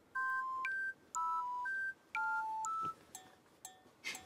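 Background music: a simple electronic melody of pure beeping tones, two notes sounding together, each about half a second long with short gaps between, thinning out to single short notes near the end.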